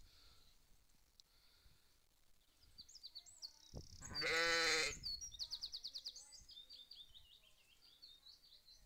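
A black-faced ewe bleats once, a loud call lasting about a second, near the middle. Faint high chirping goes on behind it.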